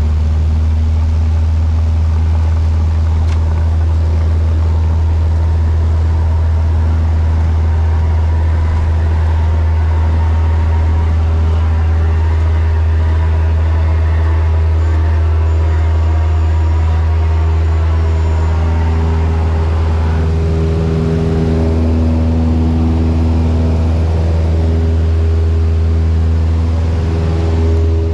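Single-engine Cessna's piston engine and propeller droning steadily at takeoff power, heard inside the cabin as a loud, low, even hum.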